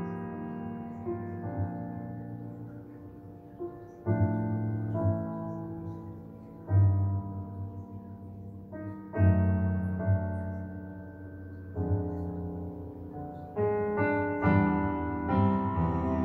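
Slow solo piano music played back over home-built two-way loudspeakers, a new chord struck every two to three seconds and left to ring and fade.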